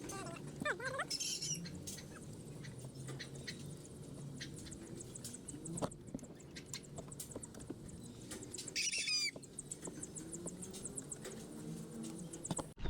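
Faint bird chirps and rapid trills, with a few light clicks.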